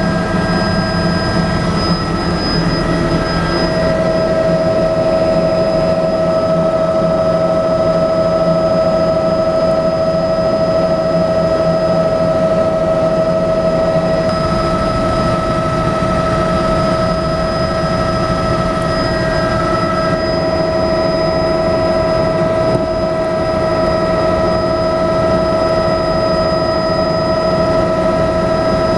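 Bell 206B-3 JetRanger III helicopter in cruising flight, heard from inside the cabin: a steady turbine whine over constant rotor and airflow noise, loud and unchanging.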